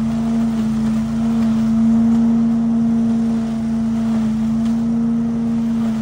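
Trailer-mounted leaf vacuum running steadily at constant speed, its engine and fan making an unbroken drone with a strong steady hum.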